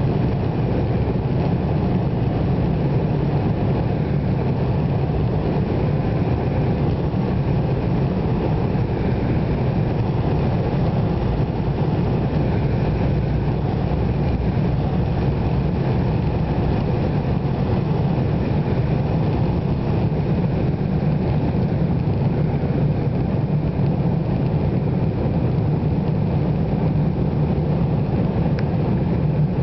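Cabin noise of an Embraer 175 at takeoff: its twin General Electric CF34-8E turbofans at takeoff thrust, a loud, steady, deep rumble with rushing air, heard through the fuselage during the takeoff roll and initial climb.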